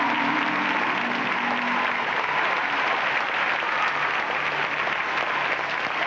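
Audience applauding as choral music ends, the music's last held chord fading out over the first two seconds.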